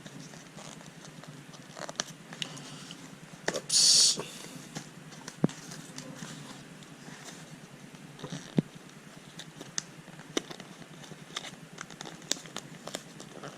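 A gift box and its packaging being opened and handled: scattered small clicks and taps, with a short loud rustle about four seconds in.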